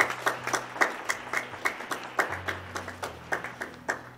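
A few people clapping their hands: sparse, separate claps several times a second, thinning out and stopping just before the end.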